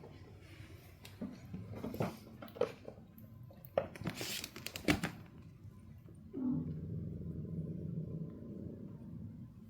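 Maine Coon kittens scuffling as they play-fight, with scattered knocks and thumps for the first few seconds. From about six seconds in comes a low, drawn-out cat growl lasting about three seconds.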